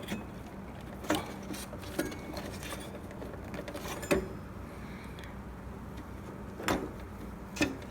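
Scattered sharp clicks and light knocks, about five in all and a second or more apart, from hand work fastening a hose tightly with a cable tie inside an espresso machine. A low steady hum runs underneath.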